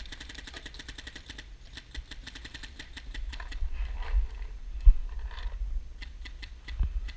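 Paintball markers firing: a fast, even string of sharp pops for the first second and a half, then scattered single shots. Low thumps and rumble around the middle as the helmet camera is moved.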